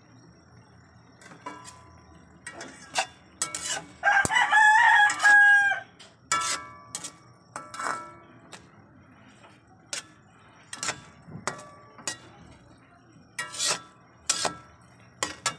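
A rooster crows once, a wavering call of about two seconds, a few seconds in. Around it, a metal spatula repeatedly clacks and scrapes against a wok during stirring, in short sharp knocks with a brief ring.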